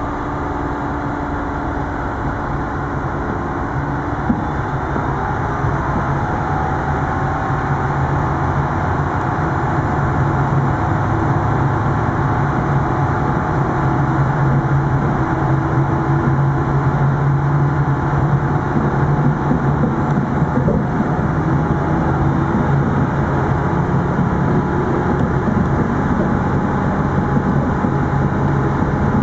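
Diesel engine of a Metrowagonmash 81-731 (MÁV class 6341) diesel railcar working under load as the train accelerates. It is a steady low drone that grows gradually louder, with a single click about four seconds in.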